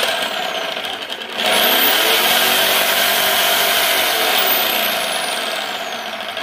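500 W Bosch electric drill spinning a mixer-grinder jar's blades. It runs loud and continuous with a brief dip about a second in, then picks up again and eases off slightly toward the end.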